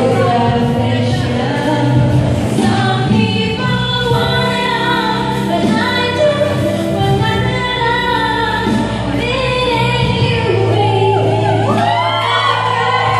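A woman singing into a handheld microphone over a karaoke backing track, her amplified voice holding long notes.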